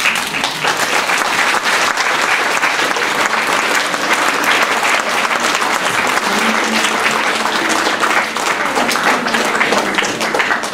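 Audience applauding: dense, even clapping that starts suddenly.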